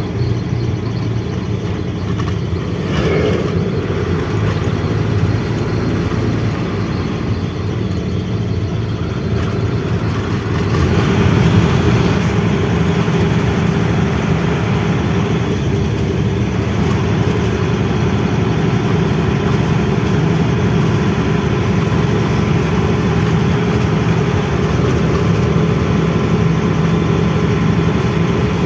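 Diesel engine of a 12-wheel truck running steadily under way, with road noise; the sound grows louder about eleven seconds in.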